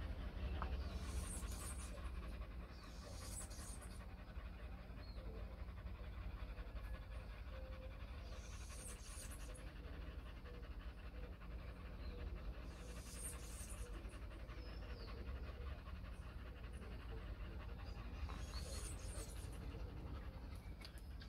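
Pit bulls panting rapidly and steadily with their tongues out, recovering from the exertion of a long run. A low steady rumble runs underneath.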